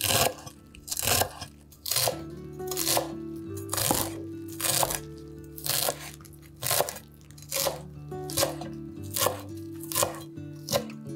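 A knife chopping food on a cutting board, about one crunchy cut a second, with the cuts coming a little faster near the end, over soft background music.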